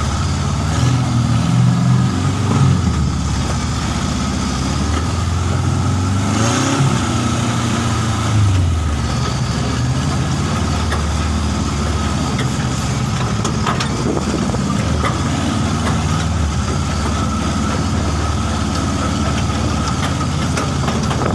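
Off-road 4x4 vehicle engines running, revving up and easing off a few times in the first several seconds, then running more evenly.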